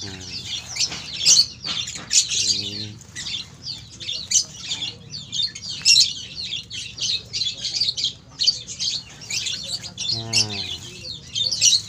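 A flock of caged lovebirds chirping and screeching continuously, a dense chatter of shrill, rapid calls.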